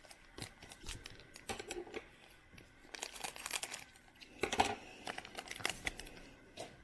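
Trading cards being handled and shuffled by hand: irregular crinkling and rustling with small clicks. The handling is busiest about three seconds in and again briefly at about four and a half seconds.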